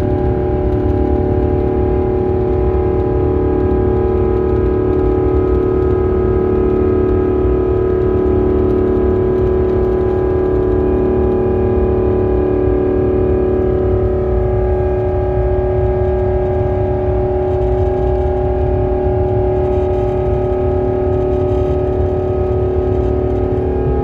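Airbus A350's Rolls-Royce Trent XWB turbofan at takeoff thrust, heard inside the cabin: a steady whine of several fan tones over a deep rumble during the takeoff roll.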